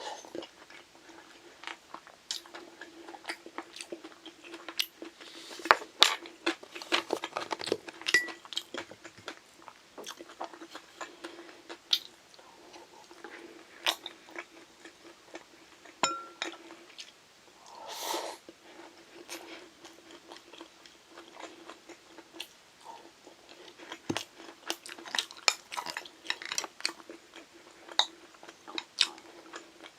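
Close-miked chewing and crunching of food, with irregular sharp crackles and clicks, over a faint steady hum.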